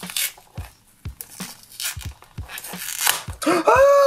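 Dried Konishi wood-glue film being peeled off a vinyl record by hand: an irregular crackling and tearing, with soft knocks from fingers on the disc. About three and a half seconds in, a held, wavering pitched sound begins.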